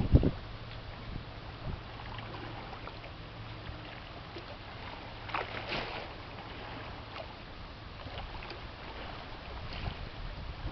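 Low, steady engine drone of a passing freighter across the river, over a haze of outdoor noise, with a brief rush of noise about halfway through. Wind buffets the microphone right at the start.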